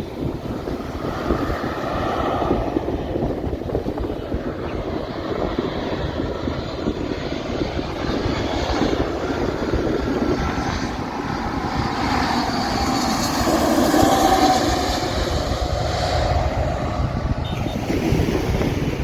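Jet airliner engines running close by, a steady roar with a whine on top that grows to its loudest about two-thirds of the way through, the whine falling in pitch as it peaks.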